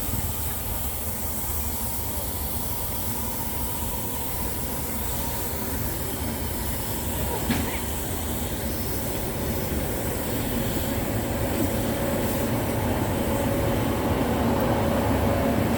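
Train at a station platform: a steady low rumble and hiss that grows a little louder toward the end, with a single sharp click about halfway and a faint squealing tone near the end.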